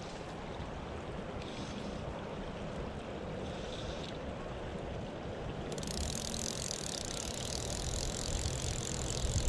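Steady rush of a shallow, rocky creek flowing, with a low rumble of wind on the microphone.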